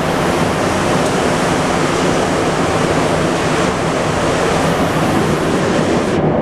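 Montreal Metro MR-73 rubber-tyred subway car running through a tunnel, heard from inside the car: a loud, steady rolling roar with a low hum under it.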